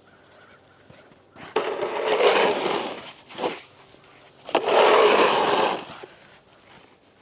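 Snow shovel scraping across the pond ice as snow is pushed along: two long strokes of a second or more each, with a short scrape between them.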